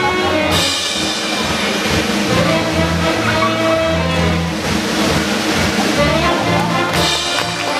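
Band music with a steady repeating bass line and sustained notes, with a crash about half a second in and another near the end.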